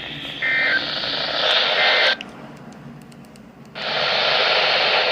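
Radio receiver hissing with static from a weak signal, with two brief faint tones about half a second and two seconds in. The hiss drops out for about a second and a half in the middle, then comes back.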